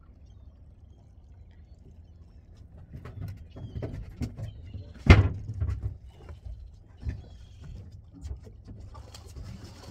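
A loud thump about five seconds in, among lighter knocks and clicks, over a low steady rumble.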